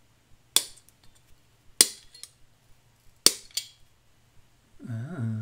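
Side cutters snipping through the soldered metal joints that hold a small circuit board in place: three sharp snips about a second or a second and a half apart, with a few faint ticks between.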